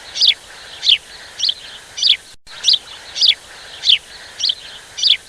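A bird calling over and over: a short, high chirp that falls in pitch, repeated about every half second, over a steady background hiss.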